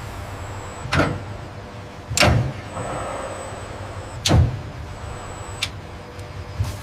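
Steady factory machinery hum with three loud sudden impacts, about a second in, a second later and two seconds after that, then two lighter knocks near the end.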